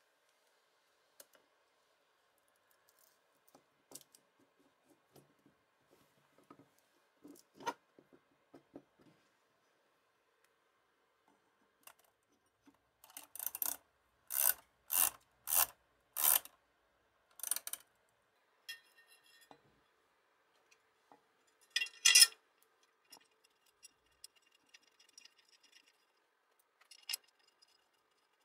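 Metal motor parts and hand tools handled during assembly of a bench grinder's electric motor: scattered light clicks and knocks, a run of about six short scraping strokes halfway through as a nut on the end cap is tightened with a spanner, and one loud sharp metallic clink a few seconds later.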